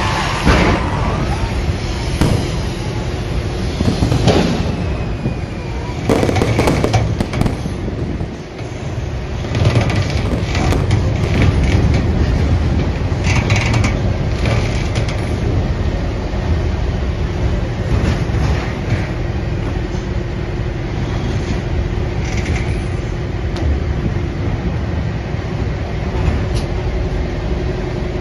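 A boat engine running steadily with a low hum, and wind buffeting the microphone, with irregular thumps mostly in the first seven seconds or so.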